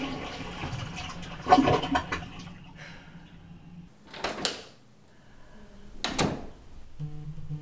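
Toilet flushing: a loud rush of water that surges about a second and a half in and drains away, followed by two short whooshes.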